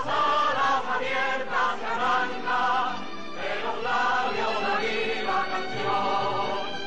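A group of voices singing together, a choir-style song with instrumental backing, from an old LP recording.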